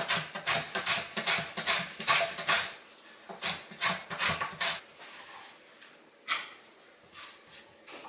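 A large carrot grated into long thin strips on a plastic Korean-carrot grater with metal cutting teeth: quick rasping strokes, about three a second, thinning to a few scattered strokes after about five seconds.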